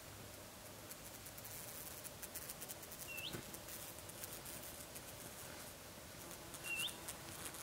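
A bird giving a single short, sharply rising call twice, a few seconds apart, over faint outdoor quiet.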